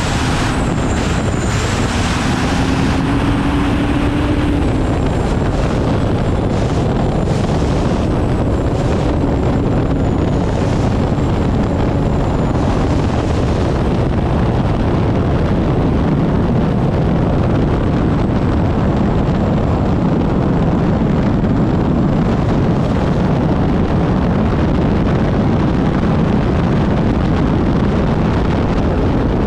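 Unlimited hydroplane's turbine engine running at racing speed, heard onboard as a steady, loud, dense noise mixed with rushing wind on the microphone. A thin high whine runs through the first dozen seconds and fades.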